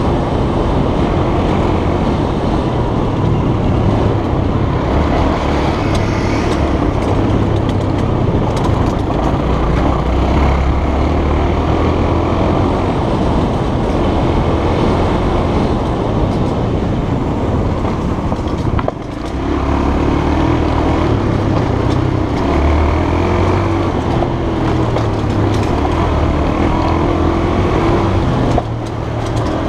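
Honda trail bike engine running under way on a rough dirt track, its revs rising and falling. The level drops briefly twice, about two-thirds of the way through and near the end.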